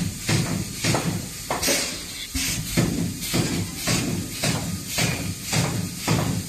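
Automatic wire mesh panel welding machine cycling, about two welding strokes a second: each stroke a sharp clack followed by the low hum of the welding transformer.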